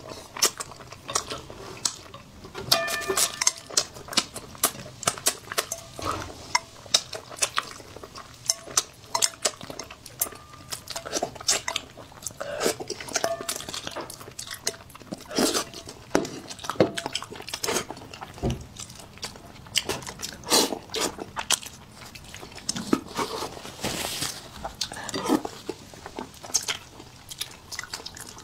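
Close-miked eating sounds: wooden chopsticks clicking and scraping against a metal bowl and a ceramic plate, with a brief ring from the bowl now and then, and wet chewing and sucking at pieces of braised fish head.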